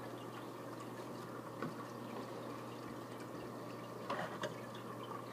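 Aquarium water trickling and bubbling steadily from the tank's filter or air bubbler, over a constant low pump hum, with a couple of louder drips about four seconds in.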